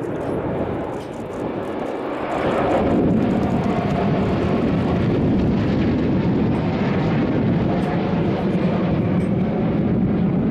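Aermacchi MB-339 jet trainers flying past in formation, the steady rushing noise of their Rolls-Royce Viper turbojets. It grows louder about two and a half seconds in and then holds.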